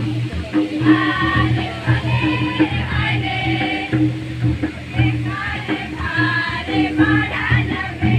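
Kharia folk dance song sung by a group of voices together, over steady drum beats.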